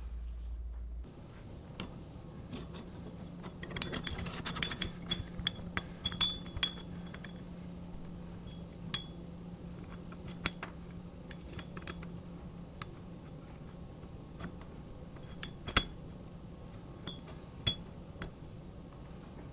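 Light clinks and taps of small hard parts being handled, in scattered ones and twos and a busier patch a few seconds in, with two sharper knocks about ten and sixteen seconds in, over a faint steady hum.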